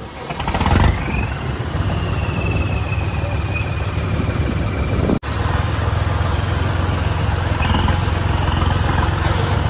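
John Deere tractor's diesel engine running steadily while the tractor drives slowly, heard close from the driver's seat. The engine picks up in the first second, and the sound cuts out for an instant about five seconds in.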